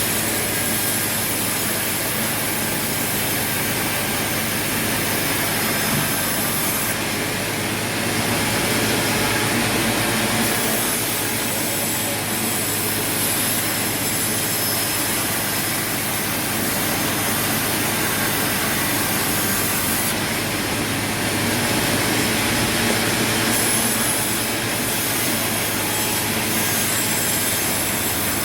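Sawmill machinery running steadily with a saw cutting through timber: a constant loud mechanical noise and hum, its high hiss changing about a quarter of the way in and again later.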